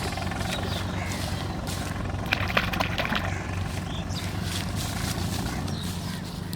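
An engine running steadily with a low hum, with a few sharp clicks about two and a half seconds in.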